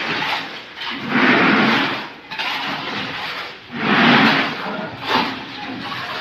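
Rough scraping of tools through wet concrete and gravel on a floor being poured, in long swells about every two to three seconds.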